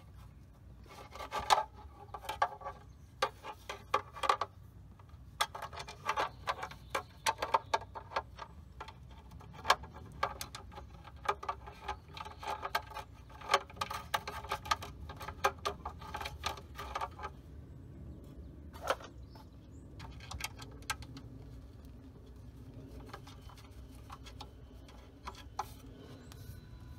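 Irregular light clicks and taps of a transmission filter being handled and fitted against the valve body of a Jeep XJ's AW4 automatic transmission, thick for about the first two-thirds and sparser after that.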